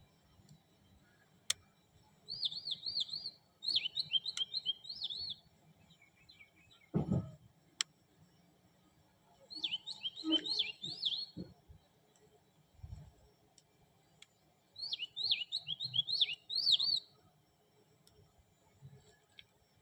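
A bird chirping in three bursts of rapid, repeated high chirps. A soft low thump comes about seven seconds in, and there are a few small clicks.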